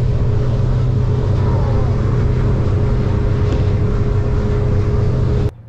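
Boat engine running steadily, heard inside the cabin: a deep hum with a thin steady whine above it. It cuts off abruptly near the end.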